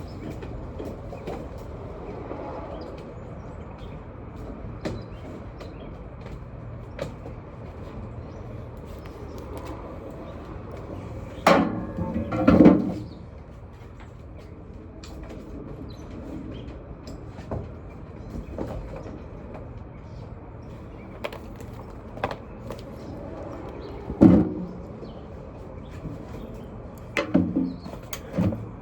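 Steady low background rumble with a few loud knocks and clunks: a cluster about twelve seconds in, one more a little past halfway through, and a couple near the end.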